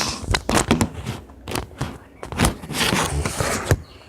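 A phone being picked up and stood back upright: handling noise right on its microphone, with scraping, rustling and a rapid series of knocks and clicks.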